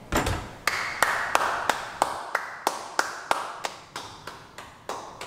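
A thud, then slow, steady hand clapping, about three claps a second.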